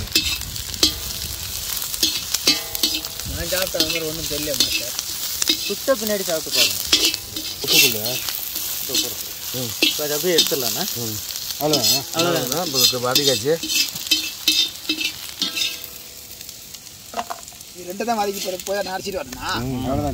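Sliced shallots and dried red chillies sizzling as they fry in oil in a large wok. A perforated metal ladle stirs and scrapes them against the pan, with many sharp scrapes and clicks. A wavering pitched sound comes and goes underneath.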